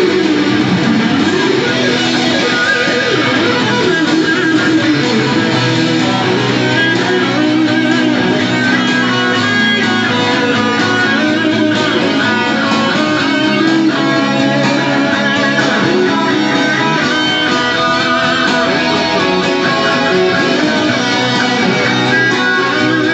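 Electric guitar playing a lead melody over a pre-recorded backing track, the music running steadily without a break.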